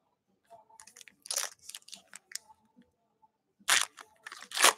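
Foil wrapper of a trading-card pack crinkling in the hands as it is handled and opened, in short irregular rustles, loudest near the end.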